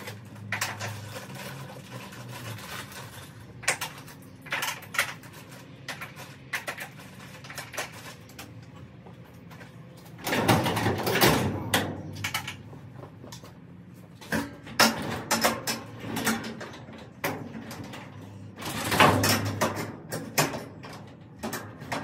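Metal sectional garage door being worked on and moved by hand: scattered clanks and clicks, with two longer rattling runs as the door shifts in its tracks.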